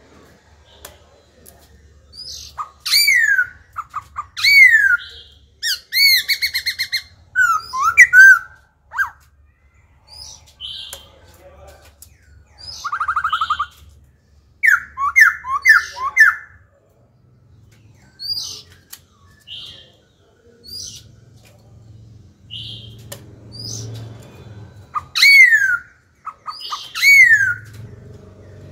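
Black-throated laughingthrush singing a loud, varied song. It mixes clear downward-sliding whistles with rapid buzzy trills and quick runs of short notes, switching phrase types continually.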